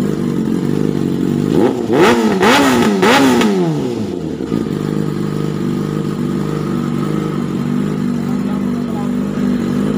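Yamaha R6 inline-four idling through an SC Project exhaust, blipped three times in quick succession about two seconds in, each rev rising and dropping sharply, then settling back to a steady idle.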